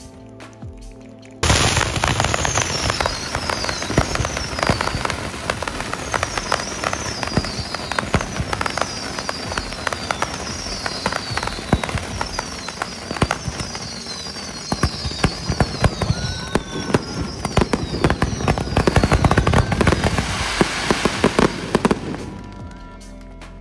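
Fireworks going off: a dense, loud crackling with repeated high falling whistles, starting abruptly about a second and a half in and dying away near the end.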